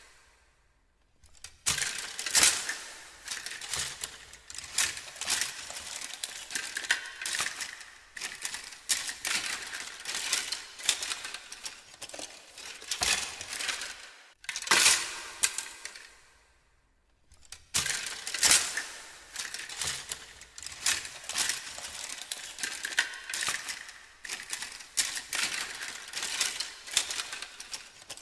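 Rummaging through a jumble of small hard objects: dense, irregular clattering and clinking with some rustling as things are pushed about and shuffled. It pauses briefly about a second in and again about halfway through.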